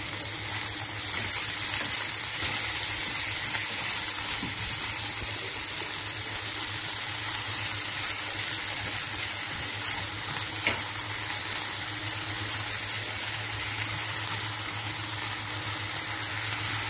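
Diced onion, potato, carrot and green chillies sizzling steadily as they sauté in oil in a frying pan, turned now and then with a spatula. A steady low hum runs underneath.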